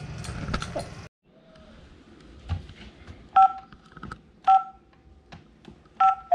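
Wall-mounted home security alarm keypad beeping as its buttons are pressed: four short two-tone beeps, the last two close together.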